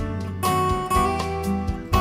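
Background music with plucked acoustic guitar.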